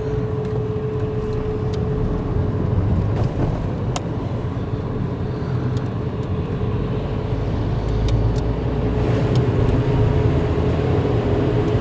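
Car driving on a wet road, heard from inside the cabin: steady engine and tyre noise with a faint steady whine. A few faint clicks about four and eight seconds in.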